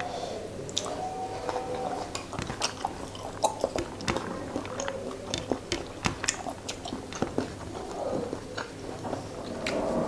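Close-miked mouth sounds of someone eating fish curry and rice by hand: chewing with many irregular sharp wet clicks and smacks.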